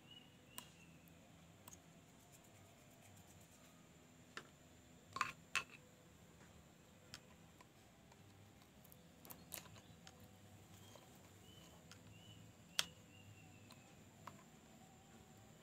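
Near silence broken by a few scattered sharp clicks and taps, the loudest a pair about five seconds in and a single one near thirteen seconds, with faint repeated high chirps in the background.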